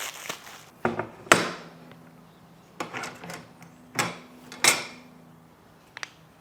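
Hardtop kit parts and hardware being handled and set down on a work surface: about five separate sharp knocks and clanks that ring briefly, the loudest about a second in.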